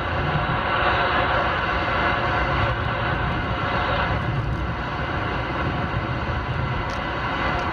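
Steady road and tyre noise inside a moving 2013 Ford Fusion S on winter tyres: a low rumble under a constant hiss.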